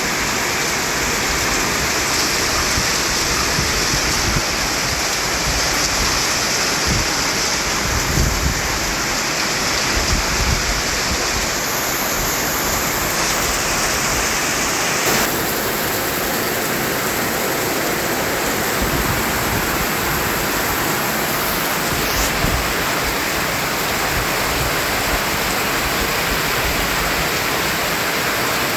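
Continuous white noise: a steady, even rushing hiss at a constant level, its tone shifting slightly about halfway through.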